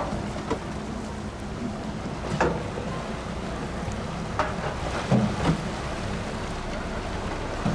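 Small fishing boat's engine running steadily over the sea, with a few short, sharp sounds over it.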